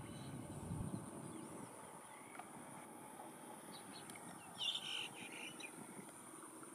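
Rural field ambience: birds chirping and a steady high insect buzz, with grass rustling in the first second. The loudest moment is a short burst of bird chirps about two-thirds of the way in.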